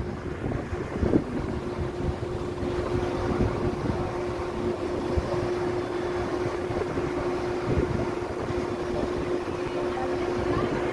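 Tour boat's engine running with a steady hum, under wind buffeting the microphone.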